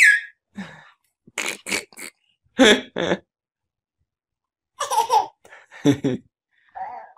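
Baby laughing in short bursts, starting with a high-pitched squeal, as a dog licks its face.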